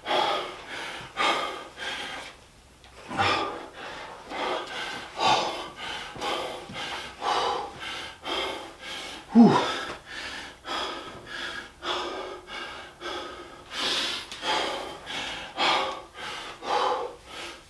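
A man breathing hard and fast, about a breath a second, winded from a long set of burpees; a couple of the exhales slide down in pitch, the loudest about nine seconds in.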